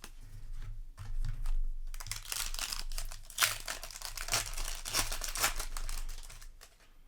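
Plastic booster-pack wrapper crinkling and rustling in irregular crackles as it is handled, over a faint steady low hum.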